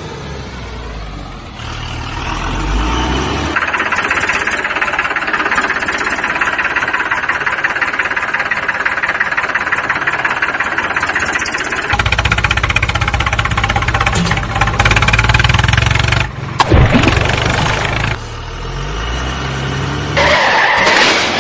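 Vehicle engine sound running and revving, laid over the toy trucks, its tone changing abruptly several times: about three seconds in, again about halfway through, and a few more times near the end.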